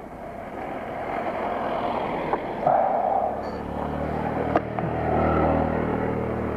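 A motor vehicle's engine running, coming up and growing louder from about halfway in, with a couple of sharp clicks.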